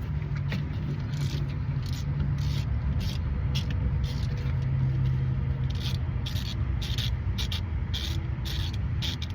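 Hand ratchet on a long extension backing out a starter bolt: short runs of ratchet clicking, about two a second, over a steady low rumble.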